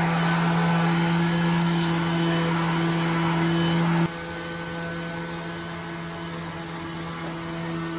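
Electric random orbital sander running steadily on a wooden panel, a constant motor hum; about four seconds in it drops abruptly to a quieter hum.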